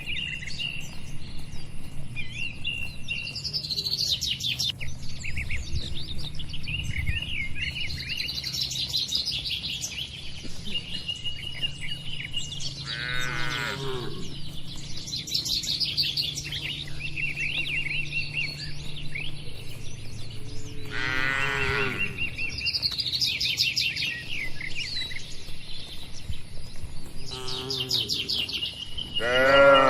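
Cattle mooing three times, drawn-out calls that fall in pitch, the last one loudest near the end, over birds chirping steadily.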